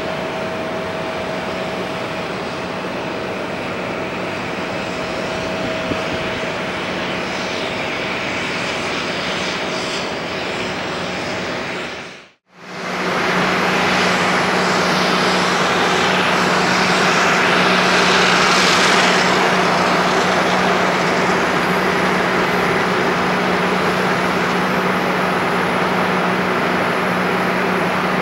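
Jet engines of a Swiss Airbus A330-300, Rolls-Royce Trent 700 turbofans, running steadily at low thrust as the airliner rolls and taxis: a steady rush with a low hum and a high whine. About twelve seconds in, the sound drops out for a moment and comes back louder, with a thin high whistle.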